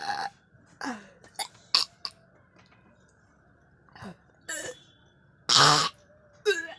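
A person coughing and clearing their throat in a series of short, separate bursts, several falling in pitch, the loudest a harsh cough about five and a half seconds in. The coughs are put on deliberately as an imitated cough-and-vomit sound challenge.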